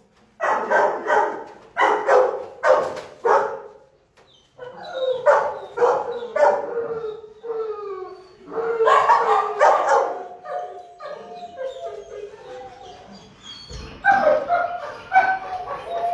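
Shelter dogs barking in their kennels: a run of about five sharp barks, then quicker yelps and more loud barks, and in the last few seconds a long drawn-out howling whine among yips.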